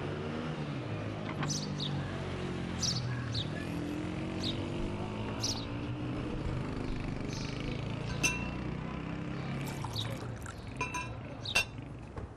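A steady low background, then in the last few seconds several sharp clinks of glass and china ringing briefly as cups and glasses are handled at a kitchen counter.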